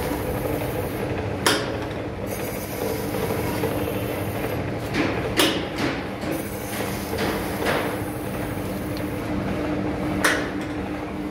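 Masking tape slicer machine running: its electric motor spins the tape log on the chuck shaft with a steady hum. The hand-pressed cutter and sliding carriage give sharp metallic clanks, one about a second and a half in, two close together around five seconds and one near the end.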